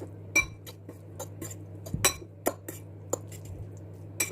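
Metal utensil clinking against a dish while mixing pancit canton noodles with their seasoning: irregular sharp clinks, several with a brief high ring, over a steady low hum.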